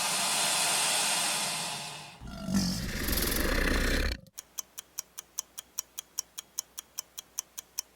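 Crocodile hissing, then a low, rough growl that stops abruptly about four seconds in. A clock-like ticking follows at about four ticks a second.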